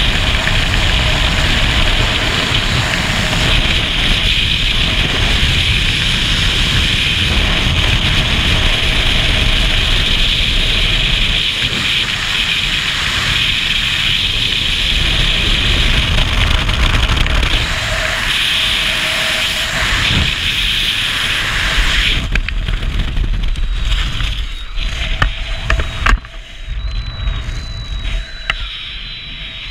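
Skydiving freefall: steady, loud wind rush buffeting the helmet camera's microphone. About 22 seconds in, the rush drops off, with a few sharp snaps as the parachute opens. A quieter, uneven wind noise goes on under the canopy.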